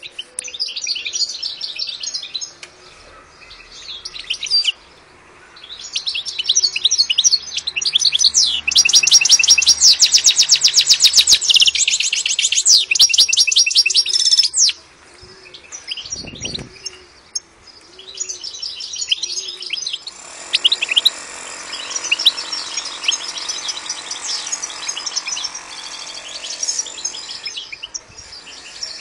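European goldfinch in full song: long bursts of fast, twittering high notes with short pauses, loudest in a run of rapidly repeated notes about a third of the way in. A soft low note repeats about once a second through the first half, and a brief low thud comes around the middle.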